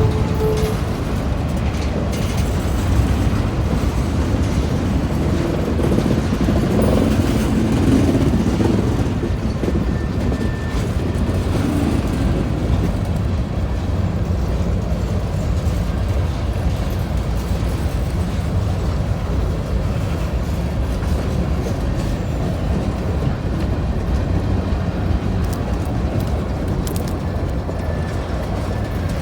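Freight train passing close by: a steady low rumble of wagons rolling over the rails.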